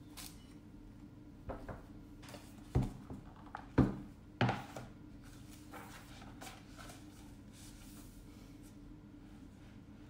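A magazine being put down on a table and opened: a few light knocks, two sharp thumps about a second apart, then a rustle of paper, over a steady low hum.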